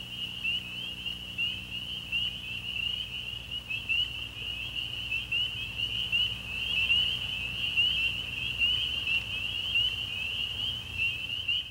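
A dense chorus of frogs calling: many short, high peeps packed at one pitch, with a faint low hum underneath.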